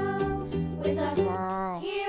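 Cheerful children's background music with a steady beat and a bass line; some notes slide in pitch about a second in.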